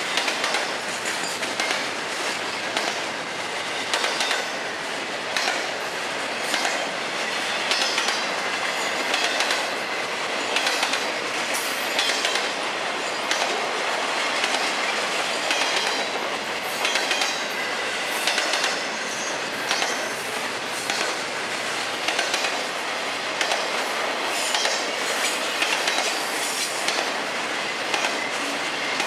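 FEC intermodal freight train's double-stack well cars and trailer flatcars rolling steadily past: a continuous rumble of steel wheels on rail, with repeated sharp clicks as the wheel sets cross rail joints.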